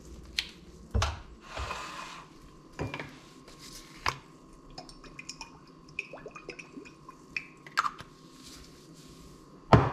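Kitchen handling sounds: metal tongs clacking and being set down, then a glass bottle of olive oil handled and oil poured into a nonstick frying pan, with small clicks and drips. A loud knock near the end is the loudest sound.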